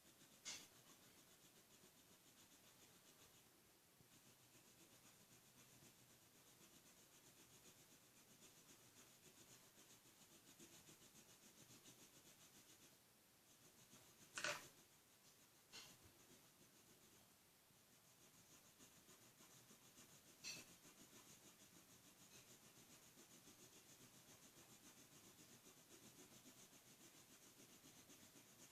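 Near silence with the faint rubbing of a felt-tip marker colouring on paper, broken by a few light clicks, the loudest about halfway through.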